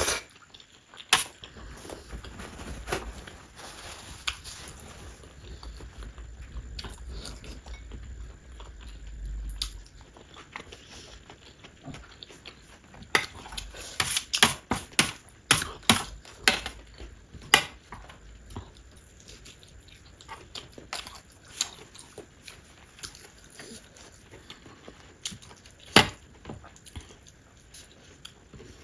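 Close-miked eating of baby octopus and noodles: chewing and biting with many sharp wet clicks and smacks, coming thickest in a run about halfway through.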